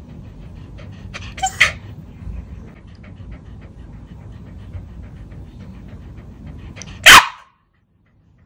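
Small puppy panting, with a short sharp bark about a second and a half in and a much louder one about seven seconds in; the sound cuts off suddenly just after.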